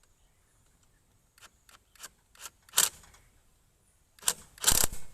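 Sharp metallic clicks from a hand tool closing the upper gear-oil plug on an outboard motor's lower unit. About five single clicks come a third of a second apart, each louder, then a quick run of clinks near the end.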